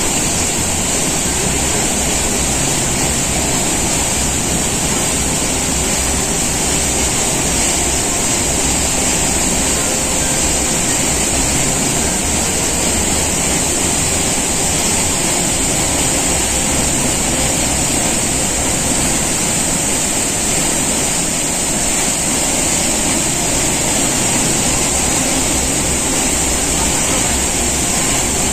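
Davis Falls in monsoon flood: a heavy torrent of water plunging into a rock gorge, giving a steady, unbroken rushing.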